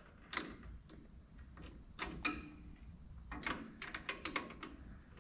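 Light metallic clicks and taps from hand tools and drum-brake parts being handled, scattered at first and coming in a quick cluster in the second half.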